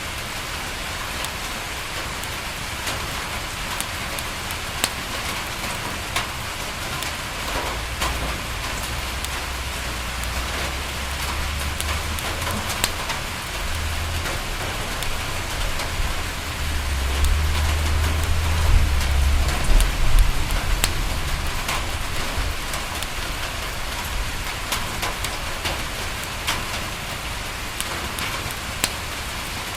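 Steady rain pattering on a window, with scattered sharp crackles and pops from a wood fire in a fireplace. In the middle, a low rumble swells and then fades away.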